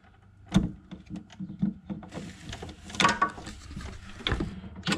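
Clicking and knocking of a small ratchet and the plastic parts of an Ideal Logic boiler being worked on by hand, with a scraping rustle for a couple of seconds in the middle.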